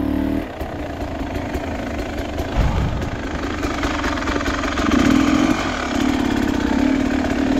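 Dirt bike engine running steadily at low revs, with one low thump about two and a half seconds in.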